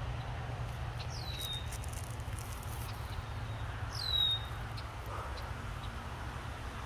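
A bird calling twice, a few seconds apart: each call is a single high whistled note that slurs quickly down in pitch. A steady low rumble runs underneath.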